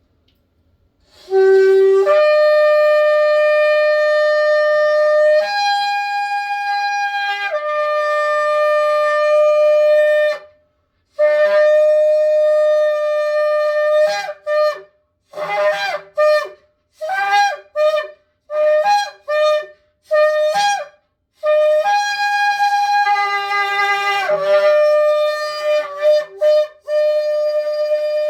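A shofar is blown in long, loud blasts that step up to a higher note and fall back. In the middle comes a run of short, quick blasts, then long held blasts again.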